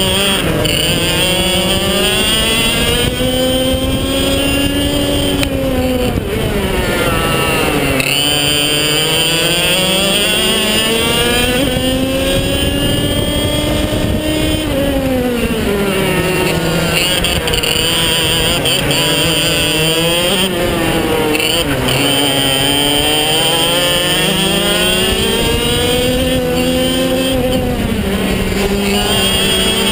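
Maxter two-stroke kart engine, heard onboard at full race pace: the pitch climbs steadily along each straight, then drops sharply as the kart brakes for a corner, and picks up again out of the turn, several times over.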